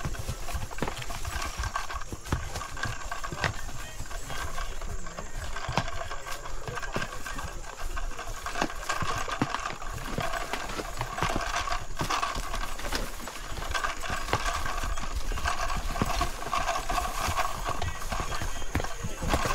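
Horses' hooves clip-clopping on a stony, muddy trail: an irregular run of sharp knocks.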